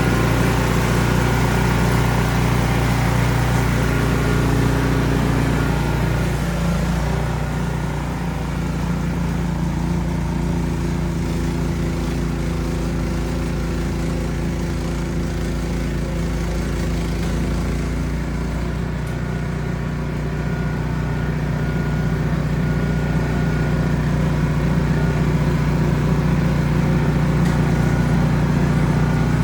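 Ariens Platinum 24" SHO snow blower engine running steadily. Its sound turns duller about a quarter of the way in and grows fuller again near the end.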